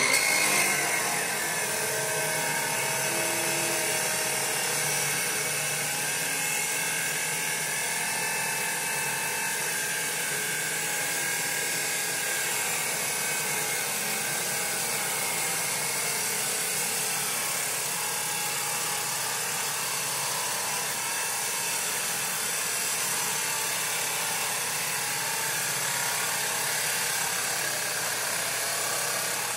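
Old 14-inch abrasive chop saw grinding through steel in a long, slow cut. Its motor whine rises as it comes up to speed at the start, then holds a steady grinding.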